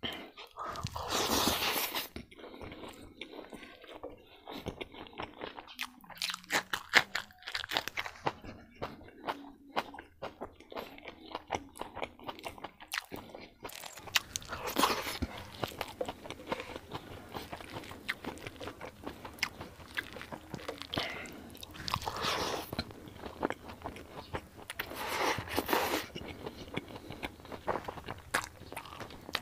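Close-up eating by mouth: chewing and crunching of rice with raw vegetables such as cucumber, lettuce and green chilli, a dense run of wet crunches and clicks. Now and then a louder, longer mouth sound as food is taken in.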